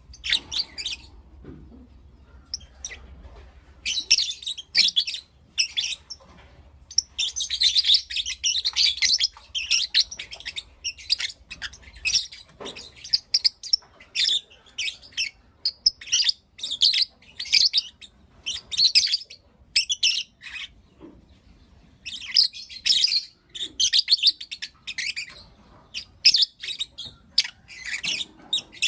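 Pet lovebirds chirping and calling: rapid runs of short, sharp, high-pitched chirps, broken by brief lulls about two seconds in and again near twenty seconds.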